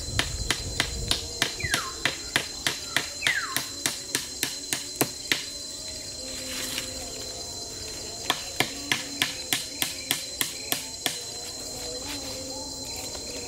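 A small knife chopping into a wooden branch: sharp knocks about three a second, in two runs with a pause of a few seconds between them. Insects drone steadily in the background.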